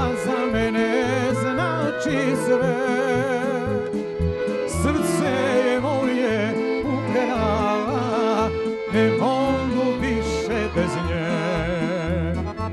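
Live Serbian folk song: a man singing with ornamented vibrato over a band of violins, accordion, keyboard and drums keeping a steady beat.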